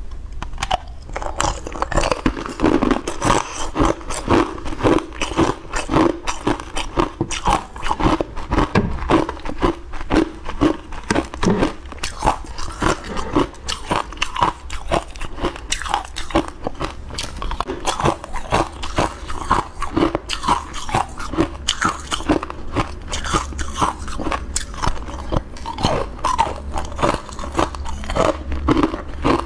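Close-up crunching and chewing of frozen green ice cubes, with quick, sharp crunches many times a second as the ice is bitten and broken up in the mouth.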